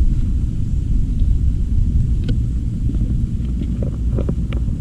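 Wind buffeting the microphone: a steady, fluttering low rumble, with a few faint clicks of handling.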